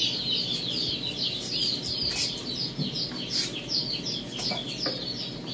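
Many chicks peeping together in a steady chorus of short, high cheeps, with a few light clicks from handling on the bench.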